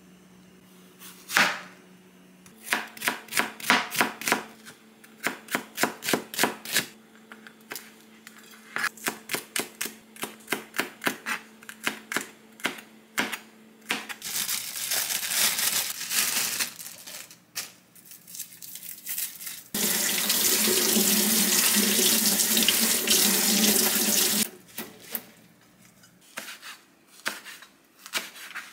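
Chef's knife chopping green onion on a cutting board in quick, even strokes, about three or four a second, in two long runs. Past the middle, a tap runs in a steady stream for about five seconds, and near the end the knife makes a few slicing cuts through stacked perilla leaves.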